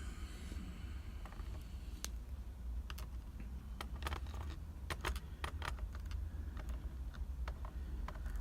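Light clicks and taps of small metal tools and padlock parts being handled, about a dozen at irregular intervals, over a steady low hum.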